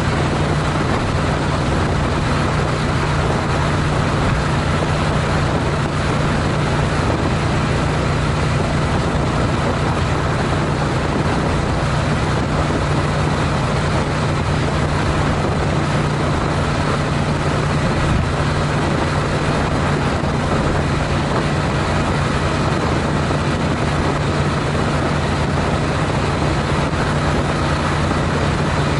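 Honda CTX700N's parallel-twin engine running at a steady highway cruise of about 65 mph, a constant low drone under steady wind rush and road noise.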